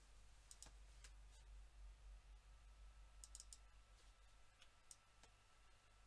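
Near silence with faint, scattered clicks from working a computer mouse and keyboard: a few single clicks, then a quick run of three about three seconds in, over a low steady hum.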